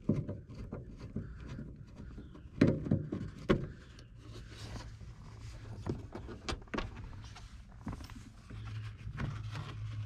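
Scattered light clicks and a few sharper knocks of hand work on car interior trim: a screwdriver backing out screws and a plastic belt-guide cover at the roof rail being worked loose.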